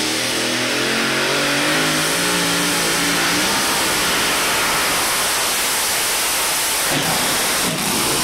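Modified pulling tractor with three V8 engines running at full throttle as it pulls the weight-transfer sled. The engine pitch climbs through the first few seconds, then settles into a loud, steady, dense engine sound.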